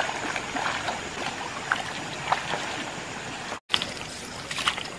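Water splashing and trickling as netted tilapia thrash in shallow pond water inside a seine net, with a brief break about three and a half seconds in.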